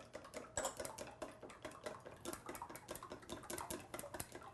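Wooden chopsticks beating eggs in a glass bowl, clicking quickly and lightly against the glass, several strokes a second, as the eggs and seasonings are whisked into an even mixture.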